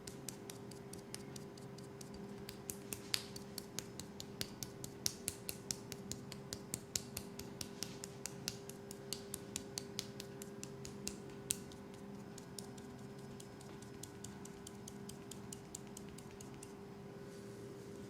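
A fast run of sharp, crisp clicks made by hand as ASMR triggers, several a second, thinning out after about twelve seconds, over a steady low hum.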